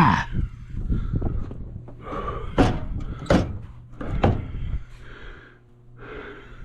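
Snow shovel scraping through heavy snow, with three sharp knocks in the middle.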